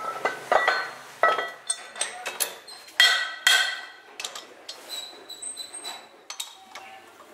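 Heavy metal mould plates for tennis ball half-shells clanking and ringing as they are set down and stacked on each other, several loud clanks in the first few seconds. Lighter metal clicks and taps follow as a T-handle wrench is brought to the plate's bolts.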